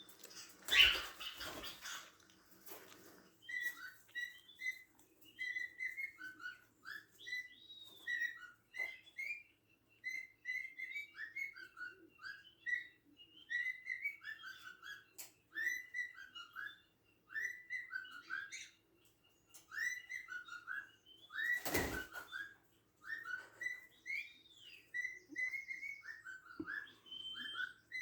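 Cockatiels chirping and whistling: a steady run of short, repeated chirps with small pitch glides, one after another. A loud bump breaks in about a second in and again about three-quarters of the way through.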